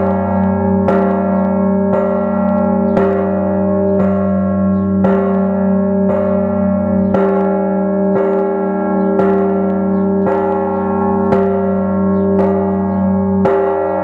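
Orthodox church bells in an open belfry rung at a slow, even pace of about one stroke a second, each stroke ringing on under the next.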